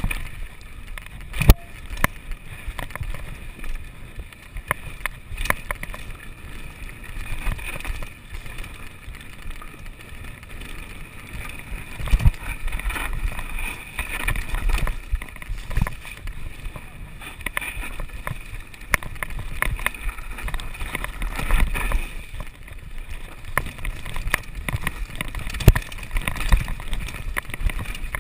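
Mountain bike riding down a rocky dirt trail: a steady rush of wind on the microphone and tyre rumble, broken by frequent sharp clicks and knocks as the bike rattles over stones.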